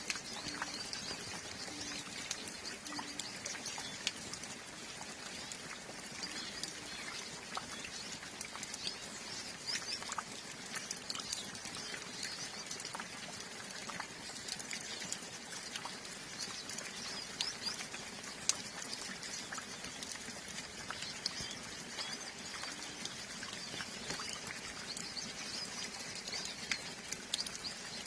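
A flock of hooded siskins twittering with many quick high chirps, over steady light rain with water dripping in scattered ticks.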